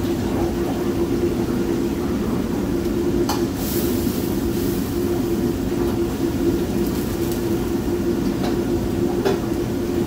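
Steady roar of a commercial gas wok range's burner and the kitchen exhaust hood running, with a constant hum under it. A few short clicks, likely a utensil on the wok, come through it.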